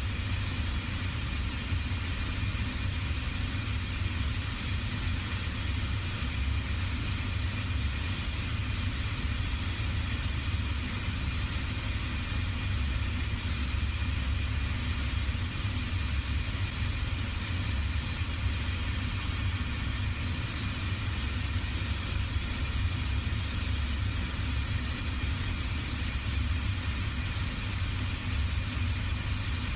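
Shoe finishing machine running with a steady low hum, its spinning sanding wheel grinding a leather sole's edge flush as the sole is pressed against it.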